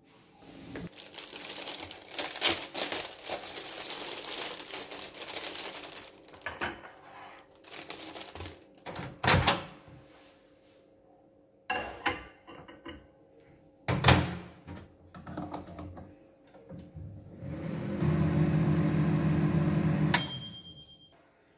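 Rustling and handling noises with a few sharp knocks and bangs, then a Beko dial microwave oven running with a steady hum for a few seconds. Its timer bell dings once near the end as the cycle finishes.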